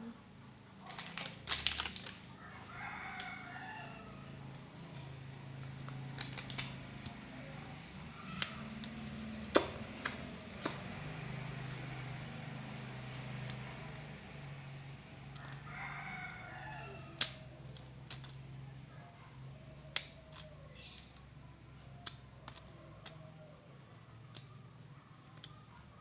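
A rooster crowing twice, about three seconds in and again around sixteen seconds in, over a low steady hum, with scattered sharp clicks and knocks throughout.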